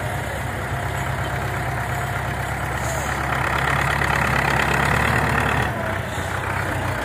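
Belarus MTZ tractor's diesel engine running steadily, growing louder about three seconds in and dropping back a little before the end.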